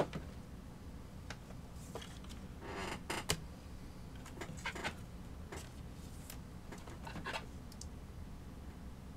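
Trading cards being handled and flipped through: scattered soft clicks and short rustles of card stock sliding against card stock, a few of them close together about three seconds in, over a low steady hum.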